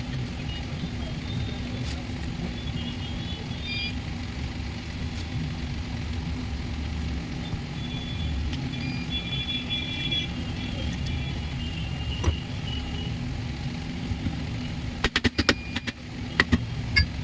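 Steady low rumble of a motor vehicle engine. There is one sharp click about twelve seconds in, and a quick run of sharp clicks or knocks near the end.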